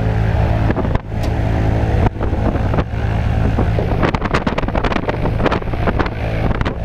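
Single-engine light aircraft's piston engine and propeller running steadily, a low drone. Propeller wash buffets the microphone in rapid gusts from about halfway through, and there are a couple of short knocks near the start.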